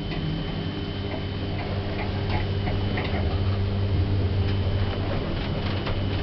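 1990s Stannah passenger lift travelling upward: a steady low hum from the drive, with light irregular ticks from the car and shaft.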